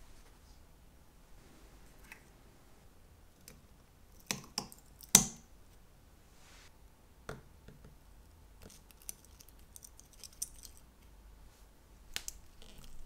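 Sharp clicks and taps of metal tweezers on the small parts of a Seiko 6309 automatic watch movement, as the dial is worked off. Three quick clicks about four to five seconds in are the loudest, with light scratchy ticking after that and a few more clicks near the end.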